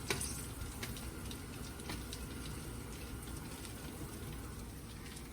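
Lamb meatballs sizzling as they cook: a steady fizzing hiss with scattered small pops and ticks.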